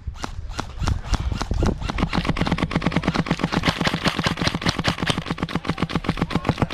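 Airsoft gun firing on full auto in long, near-continuous bursts, about ten shots a second.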